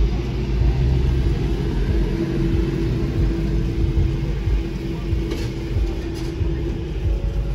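Low, steady rumble of a car's engine and tyres at slow speed, heard from inside the cabin, with a steady hum running through it.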